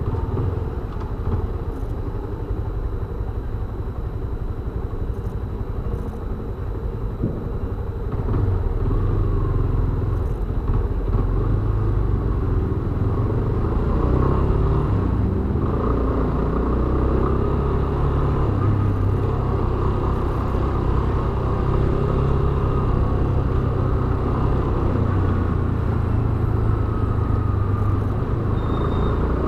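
Yamaha Fazer 250 BlueFlex motorcycle's single-cylinder engine running with a steady low drone, getting louder about eight seconds in and shifting in pitch around the middle.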